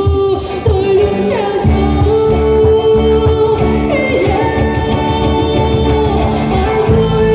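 Live pop song played by a full band of drums, keyboard and guitars, with a woman singing a held, sliding melody line into a microphone over it.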